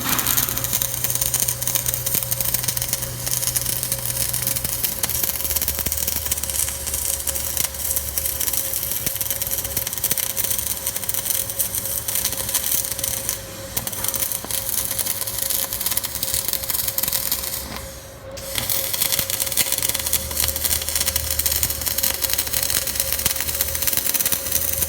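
Arc welding: a steady crackling hiss with a constant hum underneath, the arc breaking off briefly about thirteen and eighteen seconds in.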